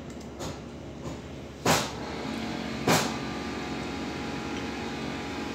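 Two sharp knocks of a glass titration flask against a hard surface, about a second apart, as the flask is swirled on a stirrer plate, with a few lighter taps before them. A steady mechanical hum sets in just after the first knock.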